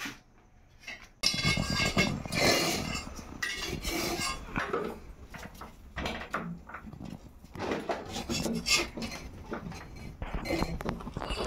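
A metal rod clattering and scraping against bricks and the concrete floor as it pokes under a shelf, with irregular knocks and rustling as things are shifted. It starts about a second in and is busiest over the next few seconds, then thins to scattered sharp knocks.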